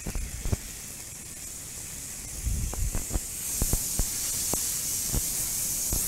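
Beef searing in hot oil in a frying pan: a steady sizzle that grows louder about three seconds in, with a dozen or so light knocks of a utensil against the pan.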